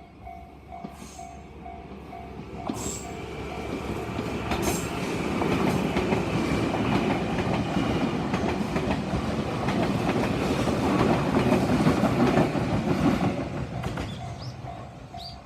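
Electric train passing over a level crossing: wheel clatter and running noise build over a few seconds, stay loud for about eight seconds, then fade. A Japanese level-crossing alarm bell rings a steady repeating ding, about two a second, at the start and again as the train fades near the end.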